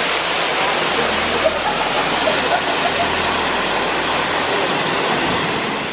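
Waterfall running steadily: a constant, even rush of falling water.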